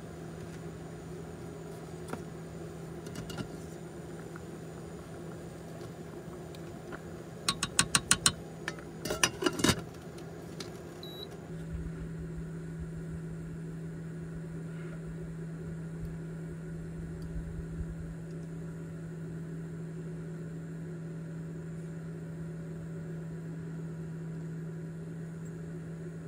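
A steady mechanical hum at one pitch, with a quick run of sharp clicks about eight to ten seconds in; the hum grows a little louder and fuller about halfway through.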